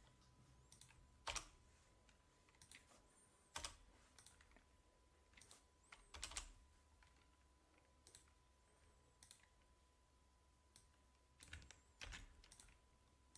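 Faint, scattered computer keyboard keystrokes, single taps and short clusters with pauses of a second or more between them.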